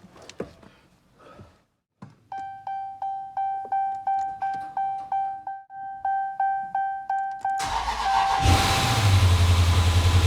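Dashboard warning chime pulsing rapidly for several seconds, then the 2020 Dodge Challenger Scat Pack's 392 HEMI V8 cranks and starts at about eight seconds in and settles into a steady idle, with the chime still sounding faintly. The car now cranks and starts, so the no-crank, no-start fault appears cured.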